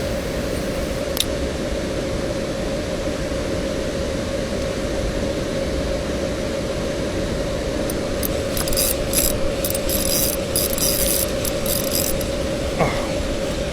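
Steady rush of flowing stream water with a faint steady hum through it. From about 8 to 12 seconds in comes a run of rapid irregular clicking.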